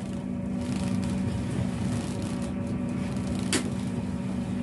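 Fishing boat's machinery droning steadily, with the noisy rustle of a nylon gill net being hauled over the deck. There is one sharp click about three and a half seconds in.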